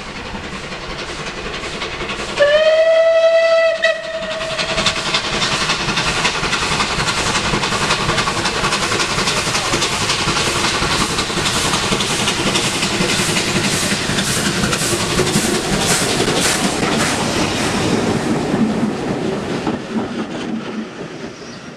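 Bulleid West Country class steam locomotive 34092 'City of Wells' sounds its whistle once, about two seconds in, for roughly a second and a half. The engine's exhaust beats then grow louder as it approaches and runs through the station, followed by the coaches rattling past over the rail joints, fading a little near the end.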